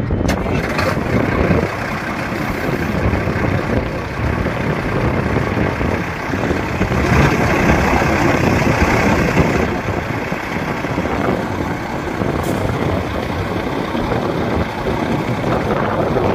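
Dennis Sabre fire engine's diesel engine idling steadily.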